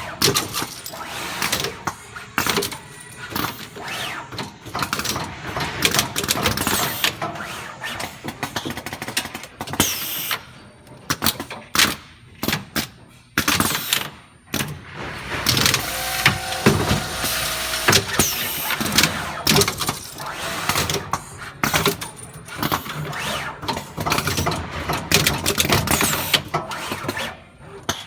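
Home-built automatic terminal-crimping machine working: many sharp clicks and clunks from its mechanism, with stretches of motor running and, about two-thirds of the way through, a short whine that steps in pitch.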